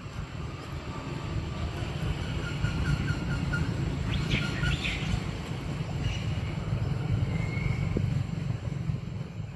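A motor vehicle engine running, its low rumble growing louder through the middle and easing off near the end, with birds chirping now and then.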